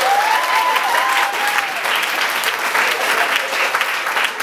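Audience applauding steadily, with a held cheer over the clapping in the first second and a half.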